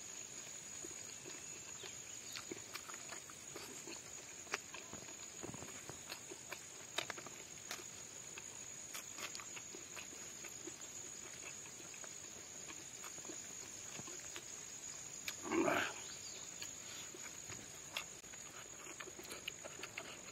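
Close-up mukbang eating sounds of rice and pork eaten by hand: chewing and lip-smacking with many small wet clicks, and one louder, longer mouth sound about three-quarters of the way through.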